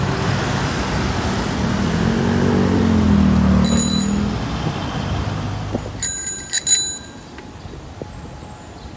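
Road traffic going by, one vehicle's engine rising and falling in pitch as it passes. Then a handlebar bicycle bell is rung once about three and a half seconds in and several times in quick succession around six seconds in.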